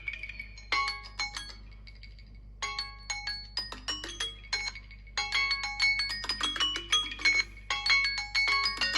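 Samsung Galaxy phone alarm and timer tones ringing at once: quick, plinking marimba-like melodies repeating in overlapping phrases. They thin out briefly about two seconds in, then come back denser.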